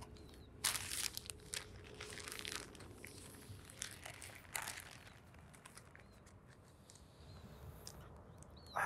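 Soft rustling and crinkling in several short bouts, the strongest about a second in.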